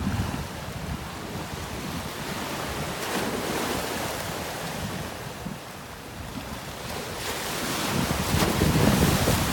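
Sea waves washing in at high tide, with wind noise on the microphone. The wash swells about three seconds in and builds louder near the end.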